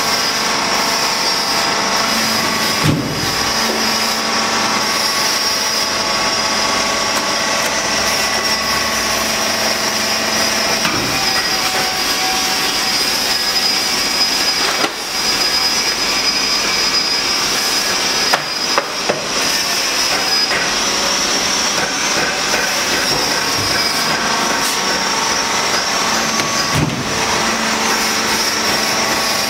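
Four-column envelope die-cutting press running, with a steady high whine and low hum from its drive, and a sharp knock about every eight seconds as the press cycles.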